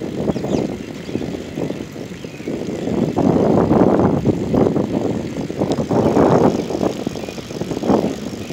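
Wind buffeting the microphone in uneven gusts, over the rolling of a dryland-mushing rig's wheels on an asphalt path as a husky pulls it along.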